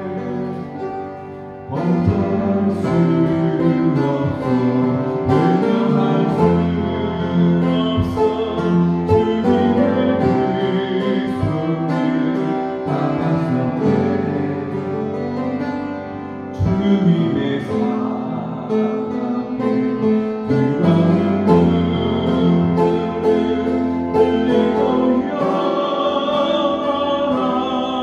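Upright piano played as accompaniment to a Korean gospel praise song, with a man singing along. The music dips briefly about a second and a half in and again past the middle before picking up.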